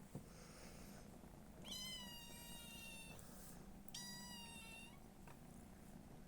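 A domestic cat meowing faintly twice, two drawn-out high-pitched calls held at a steady pitch, the first about a second and a half long, the second about a second.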